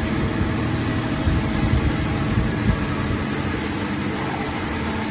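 Steady mechanical hum and noise, like an engine or machine running, unchanged throughout.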